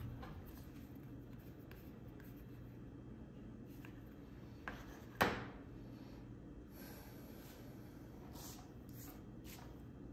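Fingers rubbing and pressing stickers onto a plastic phone case, with faint scattered rustles of sticker sheets over a low steady room hum. A sharper knock, the loudest sound, comes about five seconds in, just after a smaller one.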